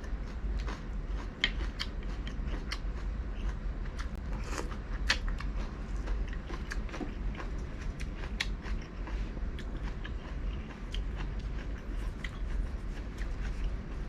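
Close-miked chewing and biting of pan-grilled seafood: irregular sharp crunches and wet mouth clicks, several a second, over a steady low hum.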